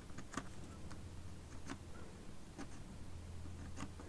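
Pencil making a few short marks on paper, separate quick strokes about a second apart, over a low steady hum.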